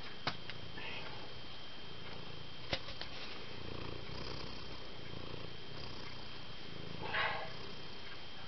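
Domestic tabby cat purring steadily, close to the microphone, with two sharp clicks in the first three seconds and a short breathy noise about seven seconds in.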